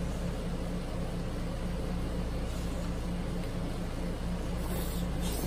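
A steady low background hum. Near the end come a few short wet mouth sounds as a boiled potato is bitten and eaten.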